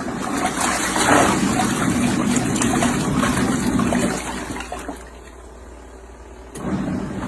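Compact twin-tub washing machine running with water churning in the tub. The sound drops away about five seconds in and starts again near the end.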